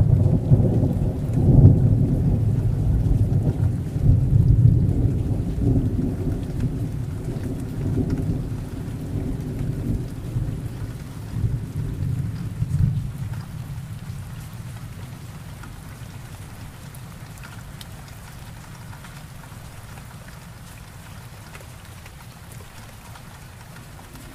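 A long roll of thunder over heavy rain: the low rumble swells again several times, then dies away about halfway through. After that only the steady patter of rain on leaves and grass is left.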